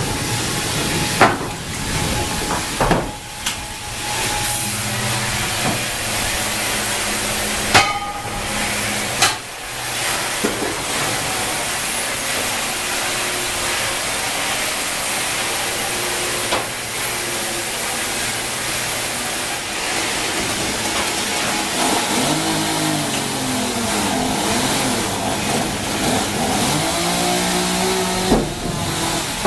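Sawmill machinery running steadily: the band-saw line and its conveyors, with a few sharp knocks in the first ten seconds and a wavering tone that rises and falls near the end.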